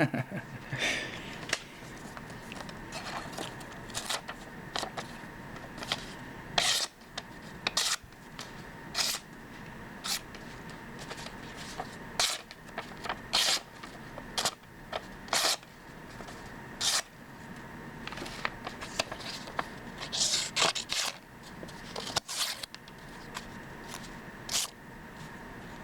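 A sharp automatic knife blade making repeated short, crisp cutting strokes, irregularly spaced about a second apart, as its sharpness is tested.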